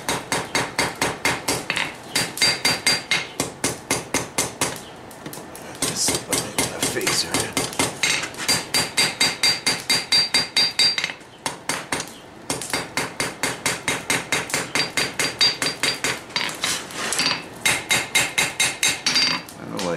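Hand hammer striking a hot steel knife blade on an anvil while the blade's point is forged. The blows come in fast, steady runs with a ringing tone, broken by a few short pauses.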